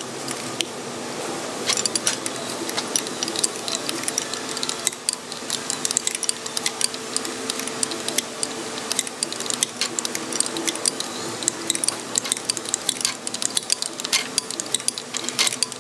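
Hand ratchet on a long extension clicking through stroke after stroke as a stubborn bolt is turned out, many quick sharp clicks, over a steady background hum.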